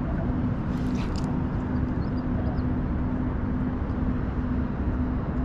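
A steady low rumble with a pulsing hum running through it, and faint bird chirps about two and a half seconds in.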